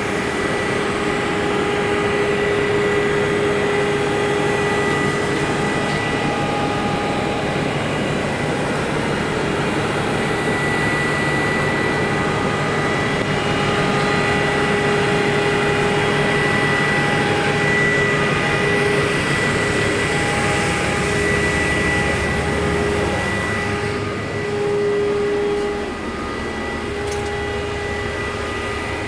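Floating crane's machinery running on board: a steady heavy drone with several high, steady whining tones over it, dipping slightly in loudness near the end.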